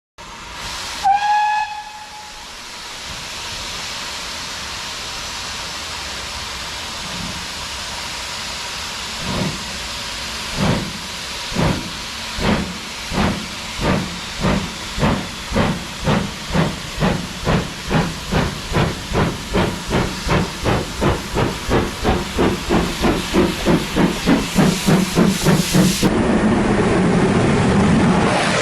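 Steam locomotive gives a short whistle blast, then hisses steadily as steam escapes. It starts away with exhaust chuffs that begin slow and quicken to about three a second. Near the end this gives way to a louder, steady train noise.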